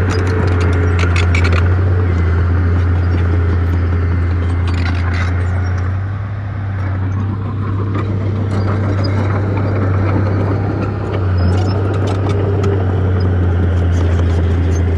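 Bulldozer's diesel engine running steadily with a deep, constant hum that eases briefly about six seconds in and again about eleven seconds in, with clusters of short clicks near the start, about five seconds in and near the end.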